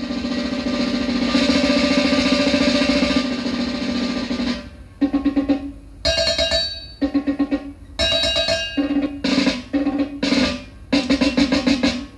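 Music played back from cassette on a Tascam 133 deck: an opening drum roll under a held chord, then a string of short, punchy chords separated by brief gaps.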